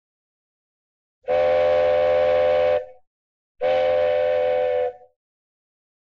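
Cartoon train whistle sound effect: two steady blasts of about a second and a half each, several notes sounding together, with a short gap between them.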